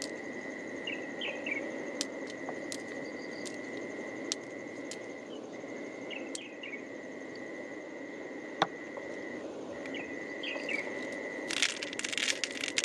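A steady high insect drone, broken twice, with a few faint chirps over low outdoor hiss; near the end, a quick clatter of small clicks as a handful of pearls is tipped into a mussel shell heaped with pearls.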